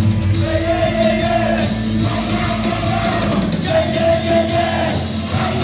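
Live church worship music: a praise team of singers singing into microphones over amplified band accompaniment, with long held notes over a steady bass line.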